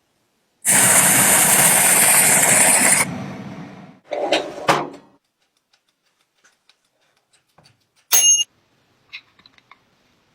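A power tool runs with a loud hiss for about two and a half seconds, then stops and winds down. Two short knocks follow, then a brief clink with a ringing tone, and a few faint ticks near the end.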